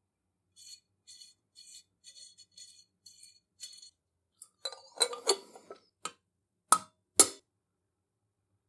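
Steel parts of an antique iron being handled on a wooden workbench. About eight faint, short scraping strokes come first, roughly two a second. Then metal clinks and knocks, and near the end two sharp metallic clicks, which are the loudest sounds.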